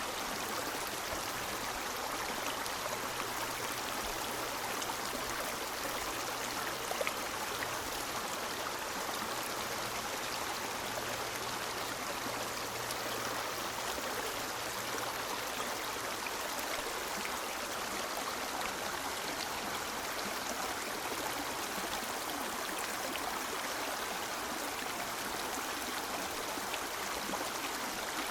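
River water flowing steadily, an even rushing and gurgling.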